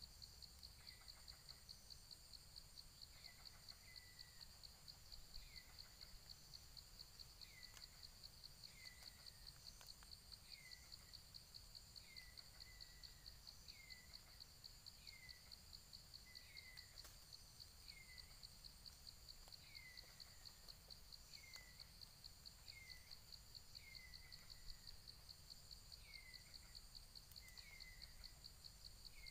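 Faint forest ambience: a steady, rapidly pulsing high insect trill, with a bird's short falling chirp repeated about once a second.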